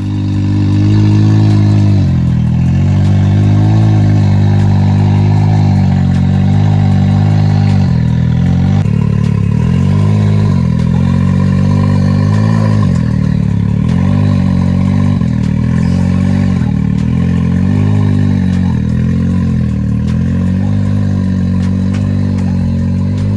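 Sport side-by-side UTV engine running loudly, mostly steady, its pitch dipping and rising a little every second or two.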